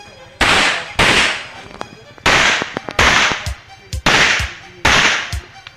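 Six pistol shots fired in three pairs, the two shots of each pair well under a second apart, each with a short echo.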